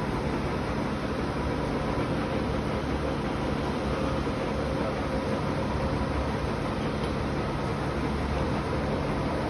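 A work truck's engine and machinery running in a loud, constant drone, steady in pitch and level throughout.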